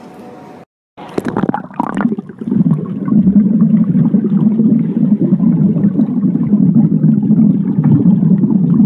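Splashing about a second in, then the loud, muffled, steady water noise of a phone's microphone held underwater in a swimming pool.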